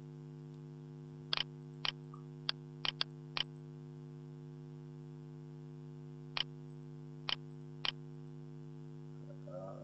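Sharp clicks of a computer mouse and keyboard being worked, about nine in all: a quick run of six in the first few seconds and three more, spaced apart, past the middle. A steady mains hum runs beneath them.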